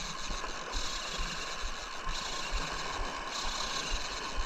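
Penn Fierce 6000 spinning reel's drag buzzing as a hooked barramundi runs and pulls line off against it. The buzz swells and eases in surges.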